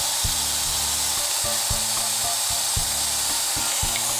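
Food processor motor running steadily, blending a thick chickpea purée into hummus. Background music with a repeating low pattern plays under it.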